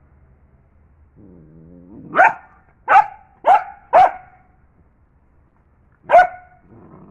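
Dog growling low, then barking sharply four times in quick succession, barking once more a couple of seconds later and growling briefly again near the end. It is barking at a mongoose it is fighting.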